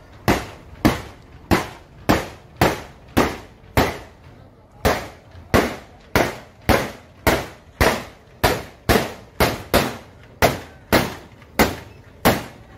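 A rapid, regular string of sharp bangs, about two a second, with a short break near the middle: explosive charges laid on the rails going off one after another under the wheels of a passing diesel locomotive, which the uploader takes for expired railway track detonators.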